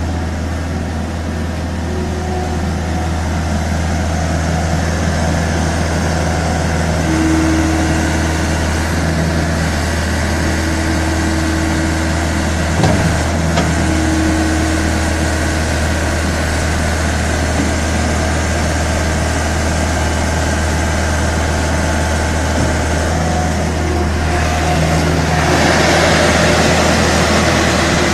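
Skid steer loader engine running steadily with a deep hum, with a single short knock near the middle and growing louder near the end.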